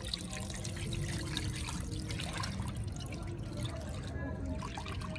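Water sloshing and splashing as hands stir cut potato sticks in a plastic bowl of water, then water pouring out of the tipped bowl onto a stone floor toward the end.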